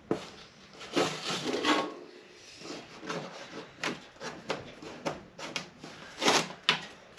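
Tape being peeled and cardboard scraping and rustling as it is pulled off the front of a car radiator, in a run of short, irregular scratchy strokes, the loudest about a second in and just after six seconds.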